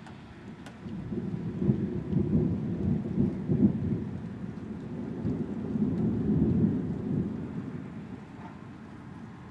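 Thunder rumbling in a long roll that builds about a second in, swells twice and dies away over several seconds, over a steady hiss of rain.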